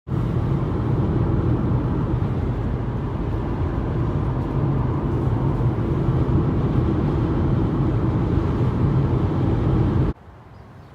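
A car running steadily, with engine and road noise at an even level and no revving. It cuts off abruptly about ten seconds in.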